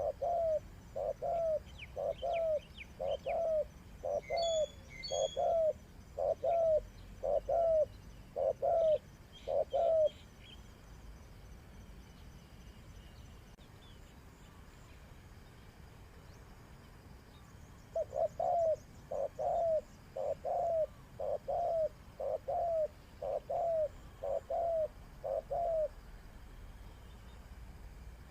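Spotted dove cooing: a long run of evenly repeated hoarse coos, which stops for about eight seconds and then starts again about two-thirds of the way through. Faint chirps of small birds sound briefly early on.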